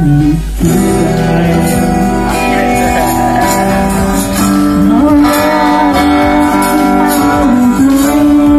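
Loud music with guitar and long held, wavering melody notes, played through a pair of floor-standing speakers.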